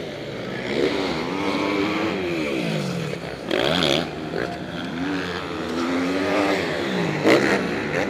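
MX1-class motocross bike engines revving up and dropping off again and again as riders take the jumps, several bikes at once with their pitches overlapping.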